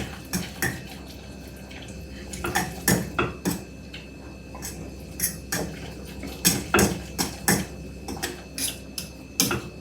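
A spoon stirring macaroni and cheese in a pot, clinking and knocking against the pot's sides in an irregular run of sharp taps, roughly two a second.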